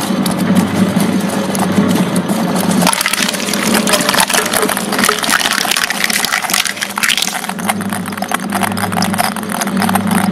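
Twin-shaft shredder running with a steady motor hum as its cutters chew through a block of jelly; from about three seconds in, a dense run of clicks and cracks as plastic table-tennis balls bounce on the turning blades and are crushed.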